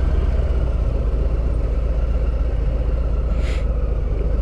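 Harley-Davidson V-twin motorcycle running steadily while being ridden, a continuous low rumble with road noise. A brief hiss comes about three and a half seconds in.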